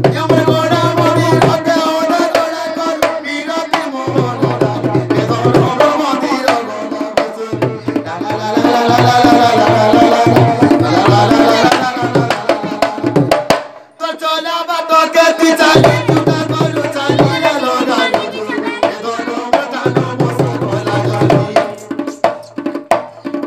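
Two-headed rope-laced barrel drum (dholak) beaten with both hands in a fast, busy rhythm, with a wavering pitched melody carried over it. The drumming breaks off briefly about 14 seconds in, then resumes.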